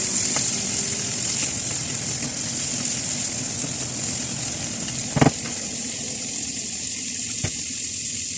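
Ground pork and freshly added string beans sizzling steadily in a frying pan, with a sharp knock about five seconds in and a couple of fainter clicks after it.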